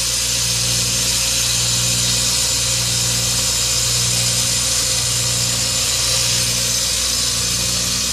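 Outdoor air-conditioner unit running with a steady, rough buzzing hum and fan rush, a noise that doesn't sound good. Its refrigerant line is neither hot nor cold and little air blows out, so the unit is not cooling; the owner wonders whether it is low on refrigerant.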